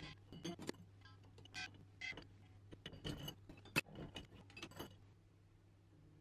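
Kitchen utensils and a metal mesh strainer clinking and knocking against white ceramic utensil holders as they are set in place on a countertop: a run of light clicks that stops about five seconds in.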